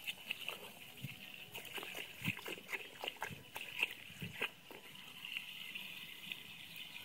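A small dog biting and lapping at water flowing from the end of a garden hose, a run of irregular splashes and mouth smacks for about the first four and a half seconds. After that the water runs on alone with only an occasional splash.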